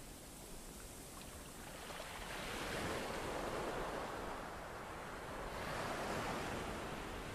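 Sea waves washing in, the surf hiss swelling twice, about two seconds in and again after five seconds, then easing off.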